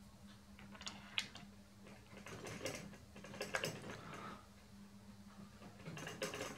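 Light metallic clicks and rattles of small steel parts being handled and fitted onto the slotter's steel housing, with one sharper click about a second in.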